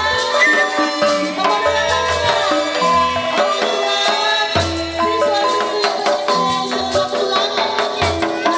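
Traditional topeng mask-dance accompaniment played live: a metallophone-like melody of ringing notes over steady, evenly paced low hand-drum strokes.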